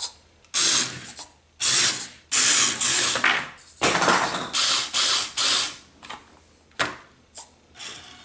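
WLtoys K969 1/28-scale 4WD RC drift car's brushed motor and gear drivetrain whirring in four bursts of throttle, the last the longest, followed by a few short ticks near the end.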